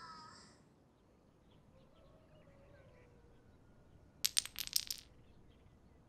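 A quick run of five or so light metallic clinks, lasting under a second, about four seconds in, over a faint hush.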